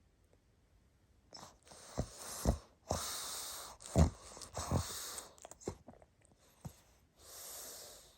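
Pug snoring: hissing breaths broken by several short, deep snorts, ending with one long hissing breath.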